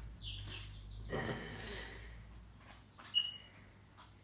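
Short high bird chirps and calls, with a breathy, rustling noise for about a second starting a second in. The loudest sound is a brief sharp high call about three seconds in, with a few light clicks around it.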